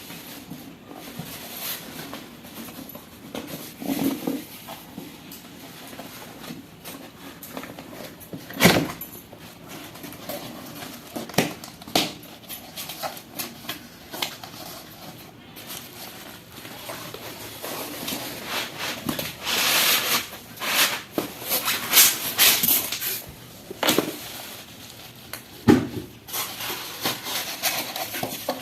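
A cardboard box being unpacked by hand: scattered knocks and taps, with a run of tearing and rustling of packing about twenty seconds in.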